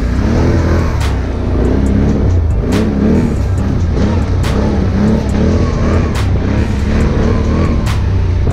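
Can-Am Outlander ATV's V-twin engine running and revving under background music that has a regular beat.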